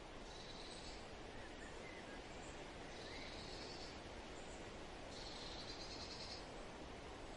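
Faint outdoor nature ambience: a steady hiss under a high, buzzy trill that repeats about every two seconds, each trill lasting about a second, with a couple of faint bird chirps in between.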